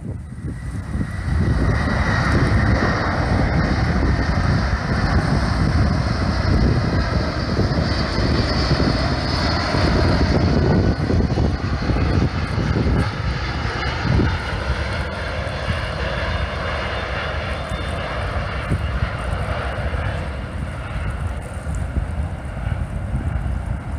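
Jet airliner climbing out after takeoff: loud engine rumble that swells about a second and a half in, with a thin whine early on, then slowly fades through the second half.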